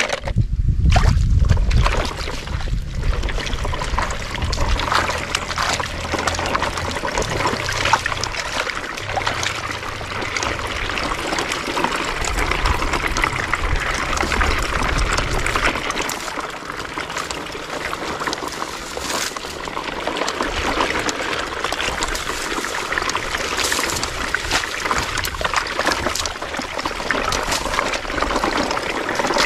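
Shallow stream water trickling steadily over gravel, with a low rumble underneath during the first half.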